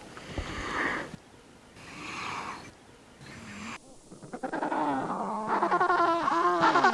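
Animal calls: three breathy, noisy sounds, then, after an abrupt change about four seconds in, a loud run of pitched calls whose pitch keeps sliding downward.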